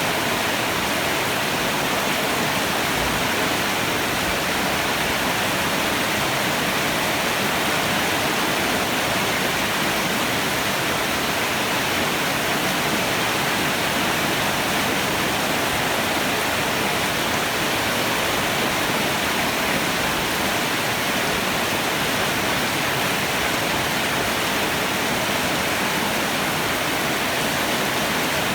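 Heavy rain falling in a steady downpour, an even hiss with no thunder.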